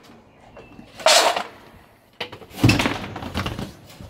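A short loud rattle of dry dog kibble about a second in, then a heavy thump of the green plastic feed bin about two and a half seconds in.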